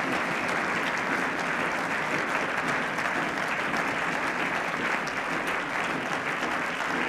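A large gathering of parliament members applauding steadily: dense, even clapping that holds at one level.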